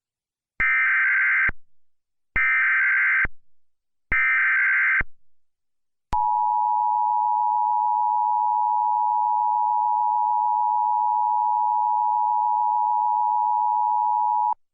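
Emergency Alert System tones: three bursts of SAME digital header data, each about a second long with a second's gap, then the two-tone EAS attention signal (853 and 960 Hz) held steadily for about eight seconds before cutting off.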